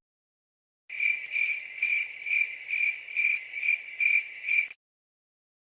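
Cricket chirping sound effect: about nine even, high chirps at about two a second, starting after a second of silence and cutting off sharply. This is the comedy 'crickets' effect for an awkward silence.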